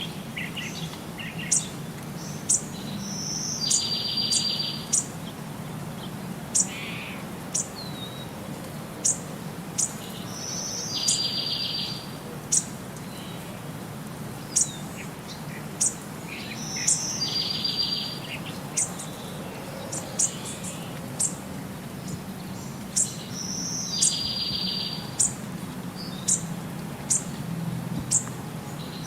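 Birds chirping in many short, sharp, high notes, with a buzzy call about a second long that comes back about every six to seven seconds, over a low steady hum.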